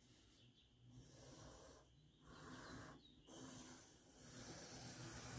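Faint scratch of a wooden graphite pencil on paper, drawn in a few long strokes of about a second each as straight outline lines go down.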